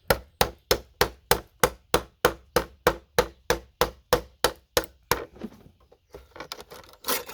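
Hammer tapping a flat pry tool wedged under a RAM slot on a motherboard, to knock the slot off the board: quick even blows, about three a second, that stop about five seconds in. Lighter knocks and a clatter follow near the end.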